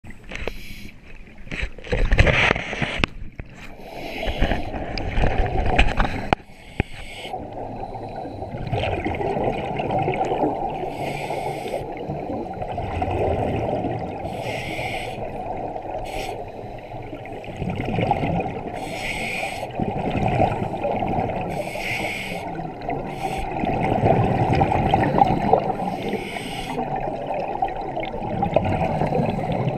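Scuba divers breathing through regulators, heard underwater: hissing bursts of exhaled bubbles come every couple of seconds over a steady low rush of water. A few loud knocks and rushes come in the first several seconds.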